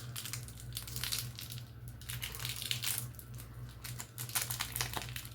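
Plastic chocolate-bar wrapper being torn open and crinkled, an irregular run of crackles.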